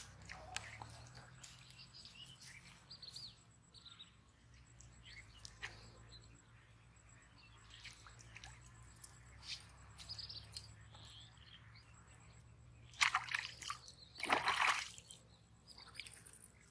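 Small birds chirping now and then over a low steady hum. Near the end come two loud bursts of splashing and thrashing as a hooked fish is pulled from the pond.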